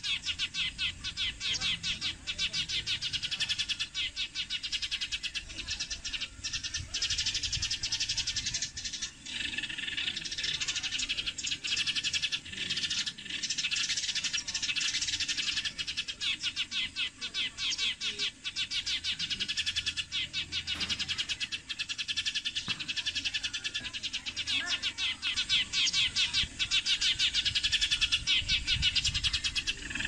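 Sparrows giving shrill, rapid chirping calls without a break, louder toward the end, from birds caught on a glue-smeared branch trap.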